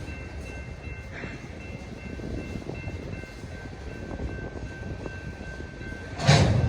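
A train running by on the rails: a steady low rumble with faint, thin high tones held over it, and a loud rushing surge a little after six seconds in.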